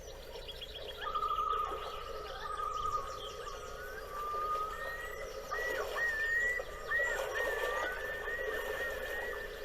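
Several songbirds singing: a fast trill, quick chirp series and sliding whistled phrases, over a steady low hum.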